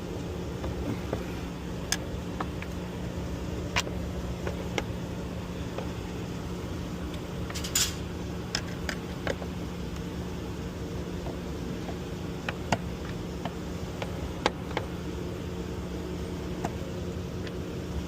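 Steady mechanical hum with a constant low tone, overlaid by scattered sharp clicks and taps of a hand tool on plastic and metal as air box fasteners are undone with a Torx driver, with one short scrape about eight seconds in.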